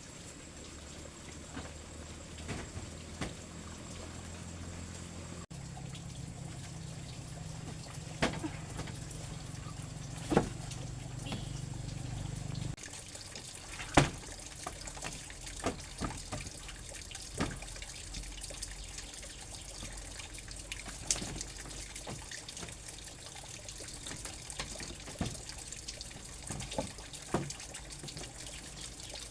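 Water trickling steadily, with scattered sharp knocks and snaps over it.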